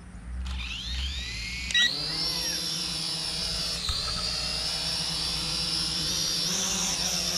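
SG907 quadcopter drone's motors and propellers spinning up with a rising whine as it lifts off, then a steady high whine while it hovers. A short beep sounds about two seconds in.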